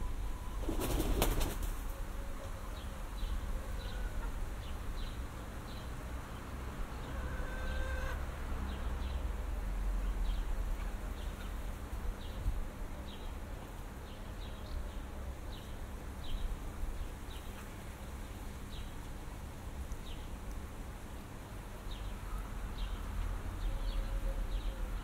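Outdoor morning ambience of small birds chirping, short high chirps repeating irregularly throughout, over a steady low rumble of wind on the microphone. A brief loud rustling burst comes about a second in, and a few short lower calls are heard now and then.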